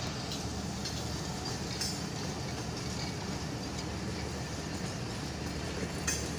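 Pakistan Railways passenger train's coaches running along the track: steady wheel-on-rail noise, with light clicks about two seconds in and again near the end.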